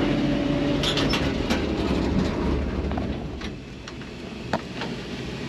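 John Deere combine's diesel engine running, then dying away about three and a half seconds in as it is shut off, with a few sharp clicks and knocks.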